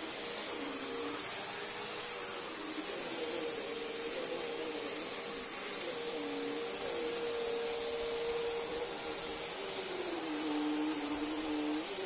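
Bissell CleanView upright bagless vacuum cleaner running steadily as it is pushed back and forth over a rug: a constant airflow hiss with a thin high whine, its motor note sagging briefly in pitch several times as the head drags on the rug's pile.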